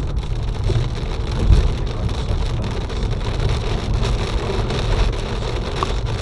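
Hail falling hard, hailstones pelting surfaces in a steady, dense patter with a low rumble underneath.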